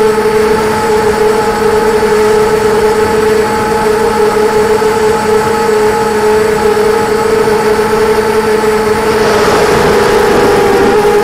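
FPV quadcopter's electric motors and propellers whining steadily in flight. About nine seconds in, a rush of air noise rises and the pitch wavers as the quad banks and changes throttle.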